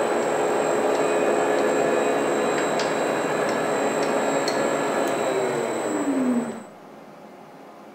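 Metal-turning lathe running with a steady mechanical noise and a few light ticks. About five seconds in, its pitch starts falling as it slows, and the sound cuts off about six and a half seconds in, leaving a faint hiss.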